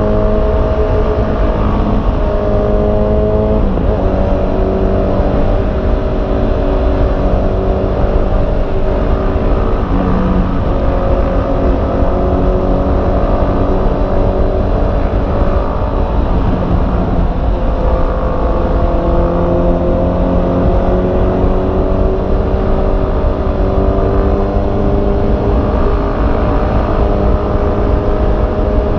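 Honda CB650R's inline-four engine running under way, its pitch holding, dipping and climbing again a few times with throttle and gears, over a steady low rumble.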